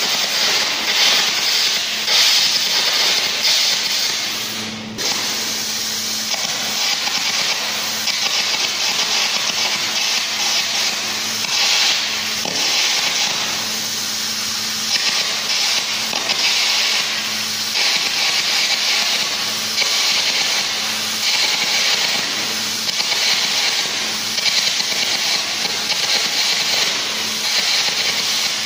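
Arc gouging along a steel plate seam to cut a groove before welding: a steady, loud, harsh hissing crackle of the arc eating into the metal, dropping briefly about five seconds in.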